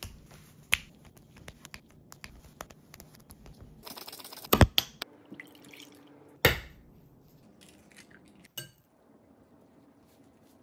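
Quiet kitchen food-prep sounds: scattered light taps and clinks, milk pouring into a measuring jug, and a couple of sharper knocks about halfway through.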